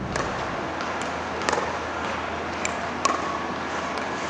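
Pickleball rally: paddles popping the hollow plastic ball and the ball bouncing on the court, about six sharp pops at uneven spacing, the loudest about one and a half and three seconds in.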